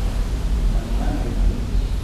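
Steady low hum with an even hiss over it: background room noise.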